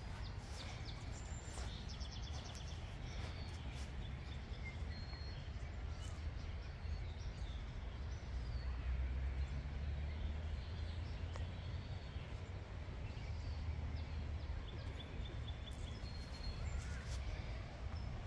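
Outdoor ambience: small birds chirping and trilling in the background, many short high calls scattered throughout, over a low steady rumble.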